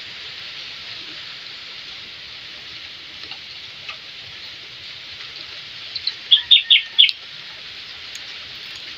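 A bird giving a quick run of about five short chirps about six seconds in, over a steady high hiss.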